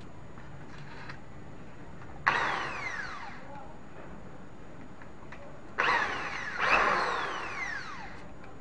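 Small electric power-tool motor switched on in three short bursts, each one starting suddenly and then winding down with a falling whine.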